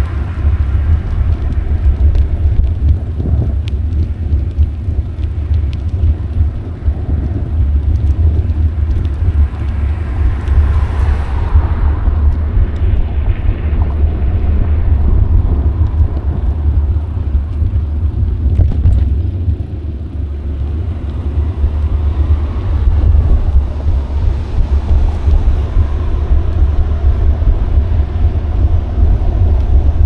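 Wind buffeting the action camera's microphone during a bicycle ride: a loud, steady low rumble with some road noise, swelling briefly about a third of the way in.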